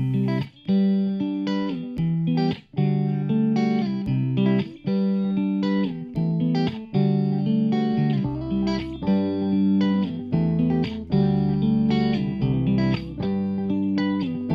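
Background music led by a plucked guitar playing steady, evenly spaced notes, with a low bass line joining about halfway through.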